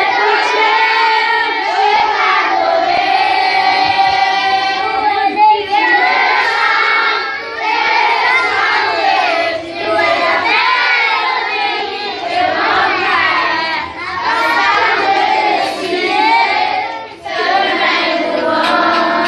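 A crowd of children singing a French worship song together, many voices at once, loud and continuous with short breaks between phrases.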